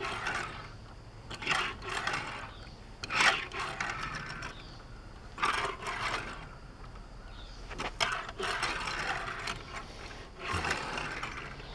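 A Hot Wheels Baja Bone Shaker die-cast toy car pushed and slid across a hard surface to test whether it drifts, its big knobby plastic tires rasping. There are about half a dozen short scraping runs, one every second or two.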